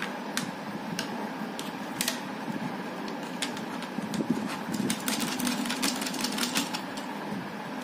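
Small plastic clicks and snaps from fingers working a part on the top of a Vega off-road helmet's shell, a few single clicks at first, then a quick run of many clicks about five seconds in. A steady hum sits underneath.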